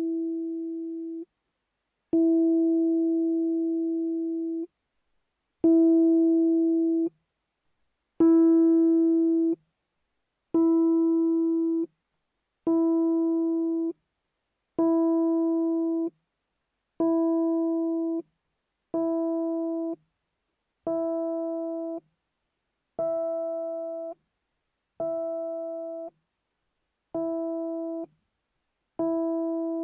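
A single key of a Fender Rhodes electric piano, played over and over, about thirteen times. Each note rings as the same steady pitch, fades, and is damped off abruptly. Between strikes the tine's height and angle against the pickup are changed by turning the voicing screw. From about a third of the way in, the notes carry more upper overtones and sound brighter.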